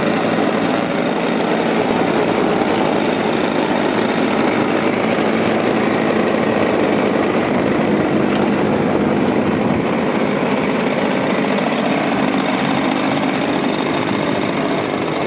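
Small internal-combustion engines of a large radio-controlled model seaplane, two engines mounted back to back in a push-pull nacelle, running steadily and loudly without change of speed.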